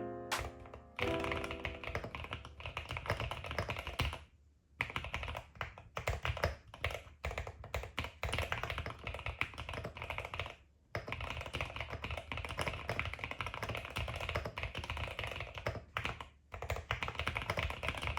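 Typing on a computer keyboard, a steady run of rapid clacking keystrokes broken by three brief pauses.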